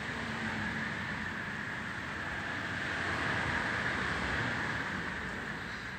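A vehicle passing at a distance: a steady rush that swells slowly to its loudest a little past the middle and fades near the end.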